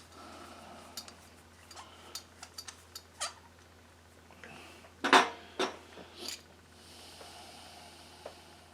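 Light clicks and taps of a screwdriver and small carburetor parts being handled, with a louder short sound about five seconds in.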